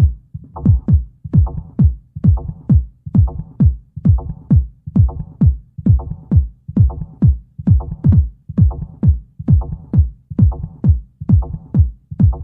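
Electronic dance music: a deep drum-machine kick whose pitch drops on every beat, about two beats a second, with a fainter higher ringing over each beat and no voice.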